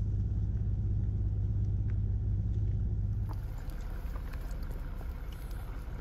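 A vehicle's engine running with a steady low hum. About three seconds in it cuts to a quieter low rumble with a few faint clicks.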